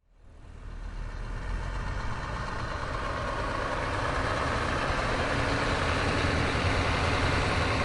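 Truck approaching: its engine's low drone and road noise fade in from silence and grow steadily louder.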